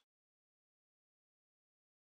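Silence: the soundtrack has ended.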